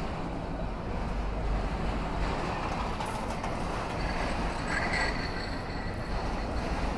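A CSX freight train of autorack cars rolling steadily past a grade crossing, its wheels running on the rails with a continuous low rumble. A brief faint high ring comes in about five seconds in.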